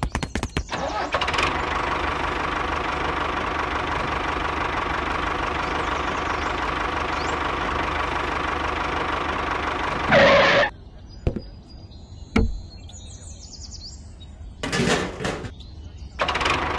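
Tractor engine running steadily for about ten seconds. It starts right after a rapid clattering like cranking and then stops abruptly. After it come a few short loud bursts and some light clicks.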